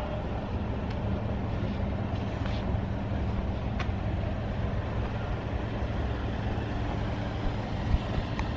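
Toyota HiAce camper van's engine running steadily, a low even hum, with a few faint clicks and one short sharp knock near the end.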